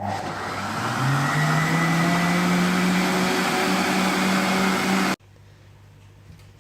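Breville Boss countertop blender running its smoothie program on a smoothie: the motor picks up speed about a second in, runs hard and steady, then cuts off suddenly after about five seconds as the program pauses.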